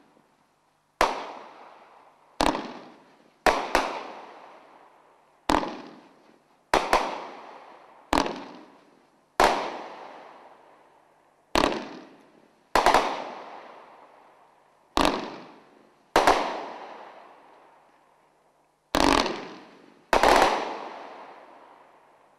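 Soaring Eagle "Aces and Eights" firework cake firing a volley of shots: a sharp bang every one to two seconds, some coming in quick pairs, each trailing off in a long echo.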